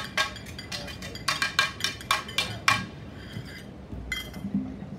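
Light metallic clinks and taps in a quick, irregular run over the first three seconds, each with a short bright ring, and one more clink about four seconds in.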